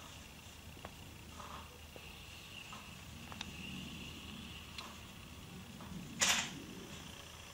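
Faint scratching and dabbing of a wide flat paintbrush on canvas, with scattered light ticks. About six seconds in comes one short, loud, noisy swish.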